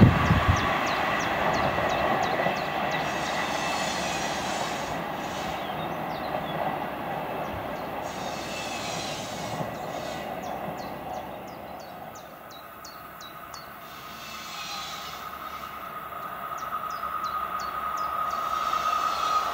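Electric passenger train running away down the line, its rumble fading out. Near the end a second train, hauled by a ČD class 362 electric locomotive, approaches with a steady high whine growing louder.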